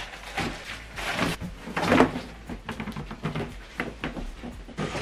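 Packaging and equipment being handled during an unboxing: irregular knocks, bumps and rustles, with one louder handling noise about two seconds in.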